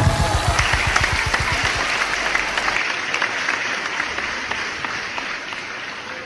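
Audience applauding right after the dance music ends, the clapping slowly fading.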